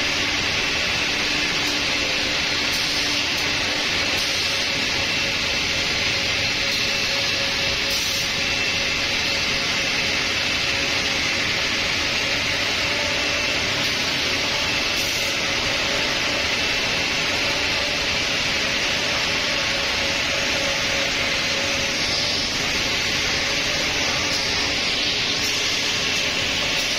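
Holztek CNC nesting router running without a break: a broad, even hiss with a thin high whine over it and a fainter low hum.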